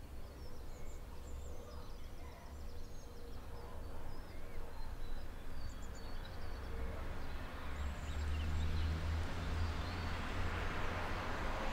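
Outdoor ambience: small birds chirping now and then over a steady low rumble, with a broad hiss swelling in the second half.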